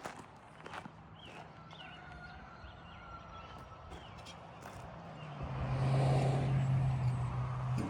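An engine's steady low hum, swelling louder about five seconds in and easing slightly near the end.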